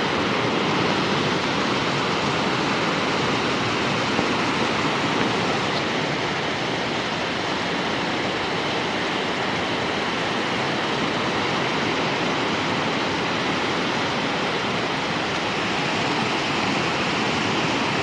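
A mountain stream in flood after heavy rain: muddy floodwater rushing over and around boulders, a steady, unbroken rushing noise.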